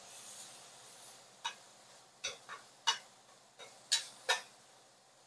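Metal spatula scraping and tapping against a cast iron frying pan of sizzling beef, about seven short sharp strikes, over a faint sizzle that dies away within the first second.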